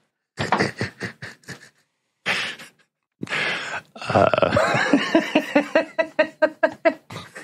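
A person laughing: a few short breathy bursts, then a run of quick, rhythmic 'ha-ha' pulses in the second half.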